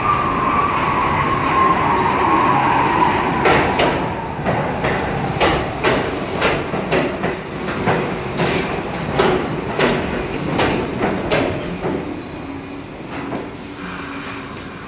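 New York City subway train running, its motor whine falling in pitch as it slows. After a few seconds comes a run of sharp clacks, about two a second, as the wheels pass over rail joints and switches.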